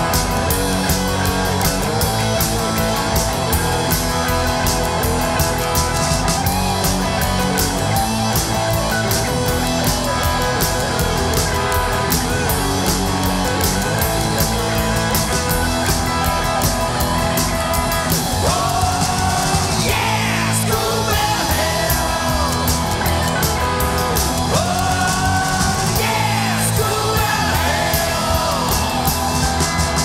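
Rock song by a full band: drum kit keeping a steady beat under guitars. About two-thirds of the way through, a lead line with bending, sliding notes comes in over it.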